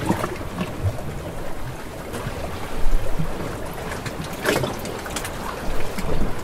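Steady rushing, water-like noise with scattered light clicks and rattles through it, a few louder ones about three, four and a half and six seconds in.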